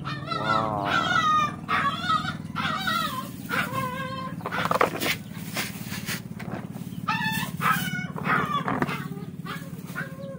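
Domestic animal calls, about five in a row with wavering pitch, over a steady low hum.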